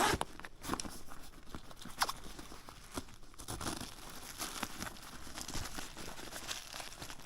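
Shipping box and packing material being opened and handled: irregular rustling and crinkling with a few sharp tearing sounds, the sharpest right at the start and about two seconds in.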